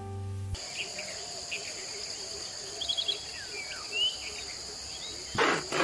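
Woodland ambience: a steady high insect drone with a few scattered bird chirps. Near the end, rasping back-and-forth strokes of a manual pocket chain saw cutting a tree branch begin, at about two to three strokes a second.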